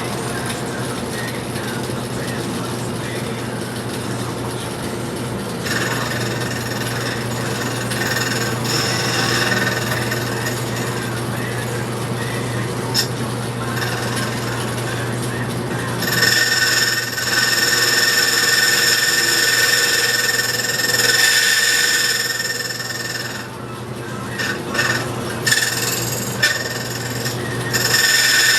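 Curtis 2H key machine cutting a duplicate key: the motor hums steadily while the cutting wheel grinds the metal blank with a high rasping sound. The grinding gets louder about 16 seconds in and breaks into short, uneven passes near the end.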